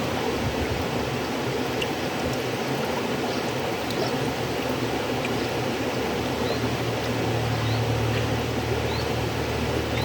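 River water flowing in a steady, unbroken rush. A few faint, short high rising notes sound over it now and then, and a deeper low rumble comes up over the last few seconds.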